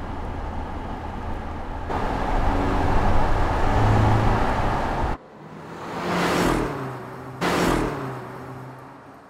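Mercedes-Benz GLC Coupe driving: steady engine and tyre noise that gets louder at a sudden cut about two seconds in. After another abrupt cut about five seconds in, the car passes close twice in quick succession, each pass a whoosh falling in pitch, and the sound then fades away.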